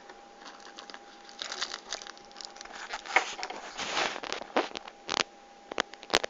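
Plastic snack wrapper crinkling and rustling as it is handled, in irregular bursts, ending with a few separate sharp clicks.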